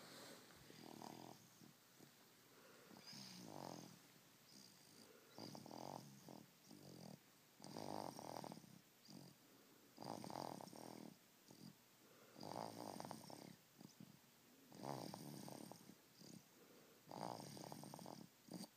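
A sleeping baby snoring quietly, one rough snore with each breath, about every two and a half seconds.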